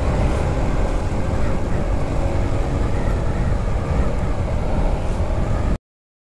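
Motorcycle riding noise: wind buffeting the microphone over steady engine and road noise, which cuts off suddenly near the end.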